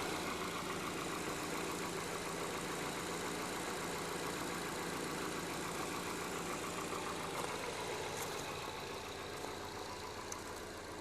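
2016 Ford Escape's engine idling steadily, left running to recharge a battery that the owner suspects is weak from corrosion. It grows a little fainter near the end.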